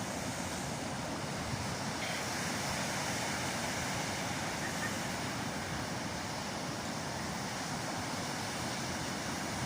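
Ocean surf rushing steadily onto the beach, with wind noise on the microphone.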